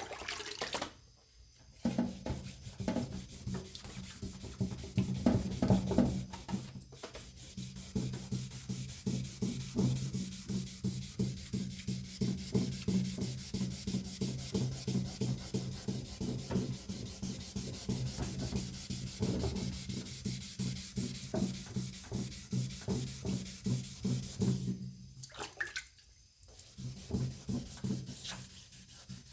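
Hand wet sanding of a painted steel part: quick back-and-forth strokes of wet sandpaper, several a second, stopping briefly near the end and then starting again.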